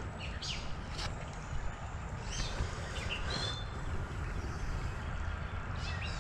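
Creek-side outdoor ambience: a steady low rumble with a few short bird chirps scattered through it.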